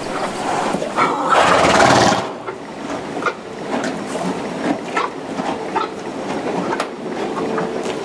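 Horses pulling hay from a hanging hay net and chewing it. A loud rustle of hay for about the first two seconds, then steady crunching and rustling.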